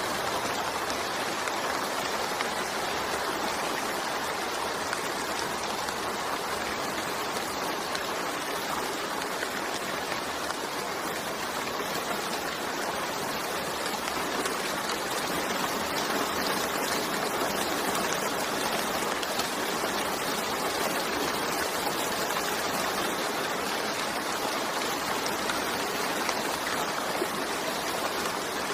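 Steady rain falling: an even hiss of countless drops that holds level throughout, with no distinct drips or gusts.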